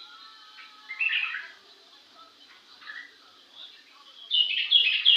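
Small cage birds chirping: a short burst of chirps about a second in, a few faint calls, then a louder run of quick chirps near the end.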